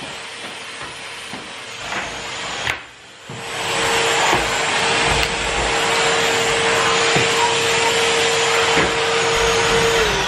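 Numatic tub vacuum cleaner running with a steady motor whine and rushing air as the stairs are hoovered, with a few knocks of the nozzle. The sound dips briefly about three seconds in, then runs louder. Near the end the machine is switched off and the whine falls in pitch as the motor winds down.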